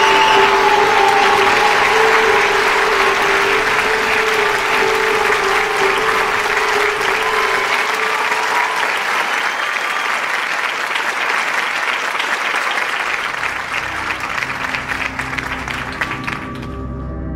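Studio audience applauding loudly over background music, with held music notes under it in the first half. The applause cuts off suddenly near the end, leaving low sustained music.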